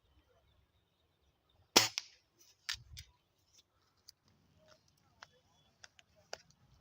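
A single sharp shot from a Gamo air rifle a little under two seconds in, followed by a couple of fainter clicks.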